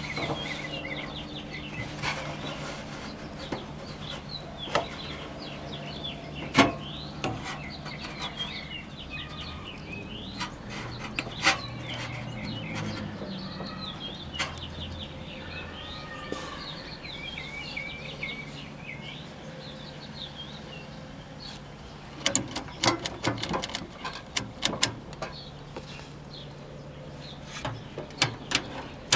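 Small birds chirping in the background over a steady low hum. In the last several seconds comes a quick run of sharp clicks, the rotary channel selector of a tube TV being turned through its detent positions while the set makes no sound of its own.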